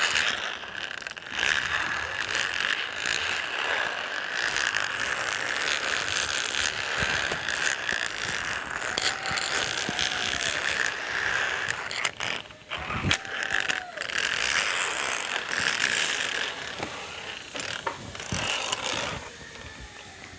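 Metal trolley and carabiners sliding and rattling along a steel safety cable overhead, a continuous rough whirring that swells and fades, with scattered sharp metal clicks and a few short squeaks.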